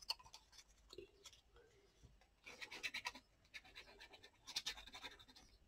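Faint scratching and rustling of paper and card being handled, in two short spells about halfway through and near the end.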